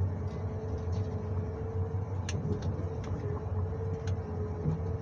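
John Deere 1910G forwarder running steadily, heard from inside the cab: a low engine hum with a constant whine over it. A few sharp knocks come about two seconds in and again near four seconds as the crane's grapple handles logs.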